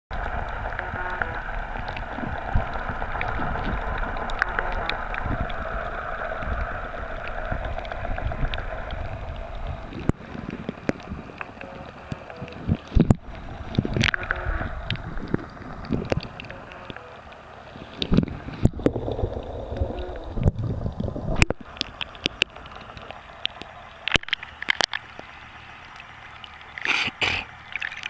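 Underwater sound picked up by a snorkeler's camera: a steady hum for the first ten seconds or so, then quieter water noise with scattered clicks and gurgles. A few louder splashes come near the end as the camera comes out of the water.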